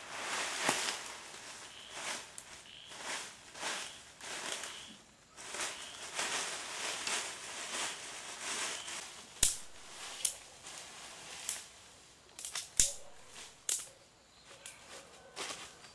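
Irregular rustling and scraping with many short clicks, and two sharp snaps that stand out, one about halfway through and one a few seconds later.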